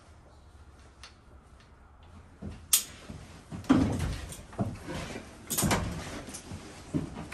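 Firefighter's turnout gear and equipment being handled as he moves around and gets down onto the wooden floor beside another firefighter: a sharp click about three seconds in, then a string of irregular thuds, knocks and rustling.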